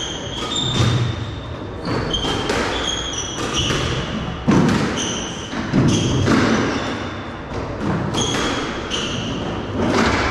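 Squash rally: the ball cracks off rackets and thuds against the walls every half second to a second, while shoes squeak sharply on the wooden court floor.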